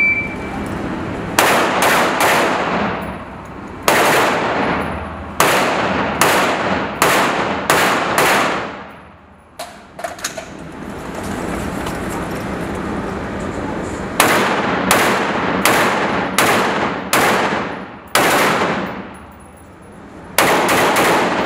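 A shot timer beeps once. Then an AR-15-style rifle fires about eighteen shots in quick strings, each echoing in the indoor range. About halfway through there is a pause of a few seconds with a few light clicks, before the shooting picks up again.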